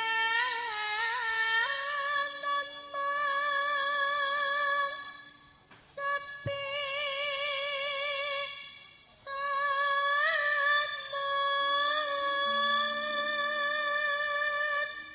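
A Javanese female singer (sinden) sings a solo bawa, the free-rhythm vocal prelude to a gamelan song in pelog pathet nem. It comes in long, ornamented phrases of held notes with a wide vibrato, pausing briefly twice, over faint low steady tones.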